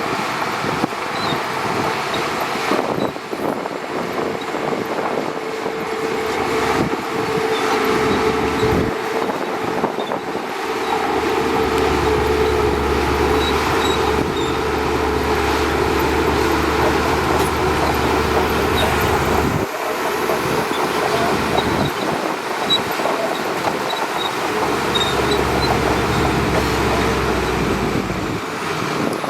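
Shantui DH17C2 bulldozer's diesel engine running steadily, with a deeper rumble joining in about a third of the way in and again near the end.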